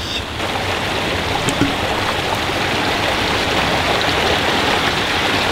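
A small mountain stream rushing steadily over rocks, a loud, even wash of water.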